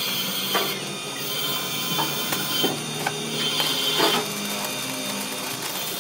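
Arc welding on a steel truck axle housing: the arc crackles and sputters steadily, with a few sharp ticks, over a steady machine hum.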